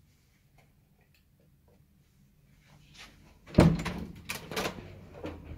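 Hotel room door being opened by its metal lever handle: a loud clack of the latch about three and a half seconds in, followed by a few more knocks and rattles as the door swings open.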